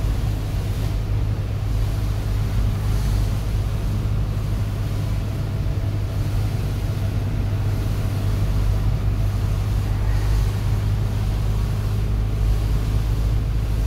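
Steady low drone of a moving vehicle heard from inside its cabin: engine and tyres running on a rain-wet highway.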